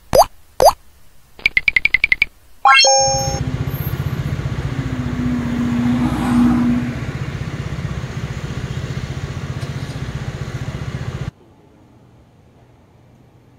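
A couple of cartoon plops and a fast run of electronic beeps, then an engine running close by for about eight seconds, swelling briefly about halfway and cutting off abruptly.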